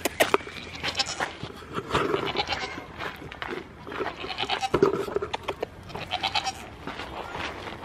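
Goats bleating repeatedly, several short high calls spread through, among scattered knocks and rustles close to the microphone.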